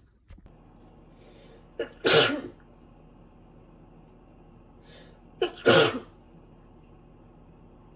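A woman with a cold sneezing twice, about three and a half seconds apart; each sneeze is a short sharp catch of breath followed by the loud explosive sneeze.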